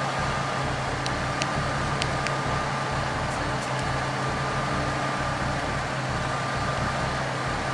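Steady low hum of an idling vehicle engine, with a few faint clicks about one to two seconds in.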